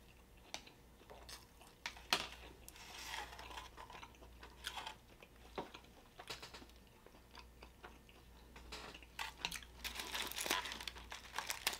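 Close-miked handling of a large foil-wrapped burrito: foil wrapper crinkling and scattered small clicks, then biting into the burrito and chewing, louder and busier near the end.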